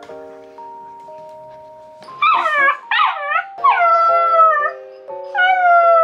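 Samoyed puppy howling in its wire crate: two short cries about two seconds in, then two longer howls that each slide down in pitch. A puppy protesting at being shut in its crate for bed.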